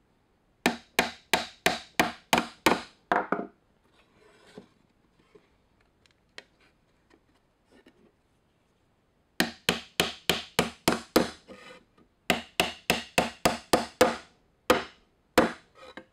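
Claw hammer driving nails into a cedar fence-board birdhouse roof: quick runs of strikes, about three a second, with a pause of several seconds in the middle and a few single blows near the end.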